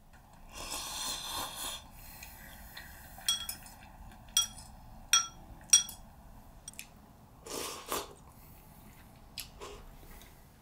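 About a second of rasping sound, then four sharp clinks that ring briefly, roughly a second apart, like small metal or glass objects knocking together. A short breathy rush follows later.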